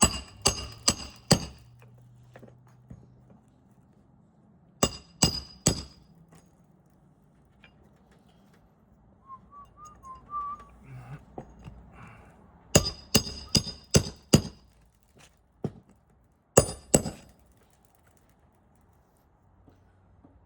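Hammer driving roofing nails into shingles: short runs of quick, sharp, ringing metal strikes, about five at the start, then four, then six, then two, with pauses between.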